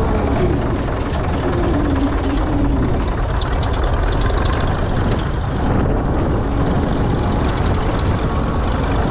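International Harvester TD24 crawler's 1091-cubic-inch diesel engine running steadily as the machine drives along. The engine note sags a little about a second in and comes back up.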